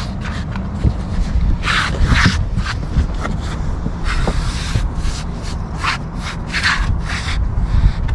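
Hands rubbing and pressing an adhesive-backed SeaDek EVA foam pad down while its wax-paper backing is peeled off a little at a time: a string of short, irregular scratchy rubbing strokes over a steady low rumble.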